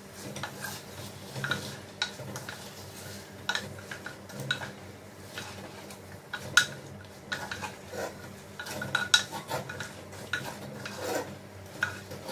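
Wooden spoon stirring chunks of mutton with onion and spices in a clay pot, knocking and scraping against the earthenware at irregular intervals, with one sharper knock a little past halfway.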